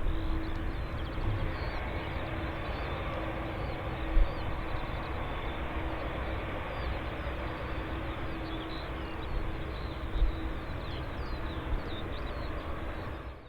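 Jet airliner engines heard outdoors, a steady rushing noise with a faint steady hum, over low wind rumble on the microphone.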